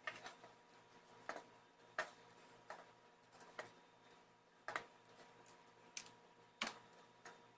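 Clicks of a computer keyboard and mouse while G-code is edited: a dozen or so single, sharp clicks at irregular intervals.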